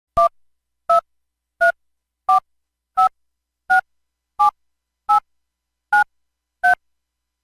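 Curitel S4 mobile phone keypad tones: ten short two-note DTMF beeps, about three every two seconds. They step through the keys in order, 1 to 9 and then one more, each key sounding its own pair of notes.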